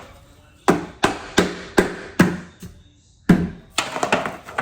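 Hammer blows driving a piece of the pet door into place: about five sharp strikes, a short pause, then three or four more.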